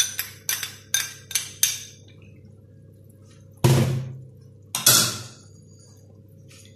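A utensil tapping against a small dish of oyster sauce held over a frying pan: about five sharp clinks in the first two seconds. Then two heavier, dull thuds, about three and a half and five seconds in.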